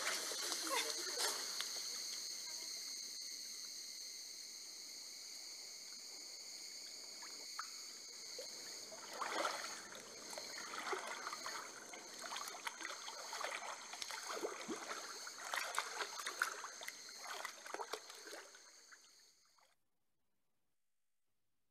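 Splashing and trickling water from Vanuatu women's water music, the water struck and scooped by hand: splashes that die away over the first few seconds, then a run of irregular splashes, cutting off suddenly near the end.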